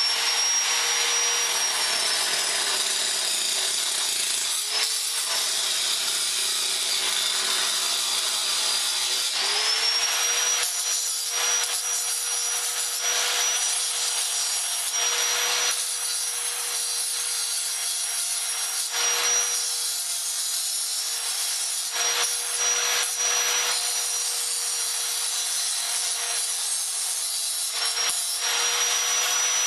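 An electric power tool runs steadily with a high motor whine over a harsh rasping cutting noise. The motor spins up at the start and again about nine seconds in, and its pitch sags now and then as the tool bites into the material.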